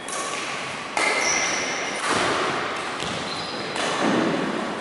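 Badminton rally: rackets striking a shuttlecock back and forth, a sharp hit roughly once a second, each ringing out in the echo of a large hall. Short high squeaks, typical of sports shoes on a wooden court, come between the hits.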